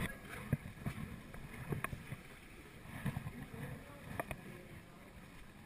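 Kayak paddling in still water: low splashing and water movement, with a few short sharp knocks about a second and a bit apart.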